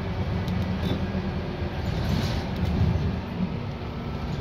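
Scania K230UB single-deck bus heard from inside the passenger saloon: its 9-litre five-cylinder diesel engine drones steadily, with road noise and a few light clicks and rattles from the interior.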